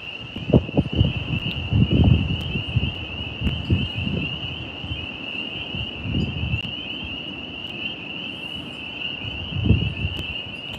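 Wind gusting against the microphone in irregular low rumbles, over a steady high-pitched chorus of tree frogs.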